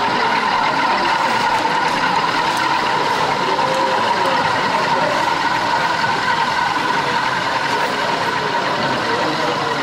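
Steady engine sound of a sound-fitted OO gauge model diesel locomotive, played through its small onboard speaker as the locomotive runs slowly.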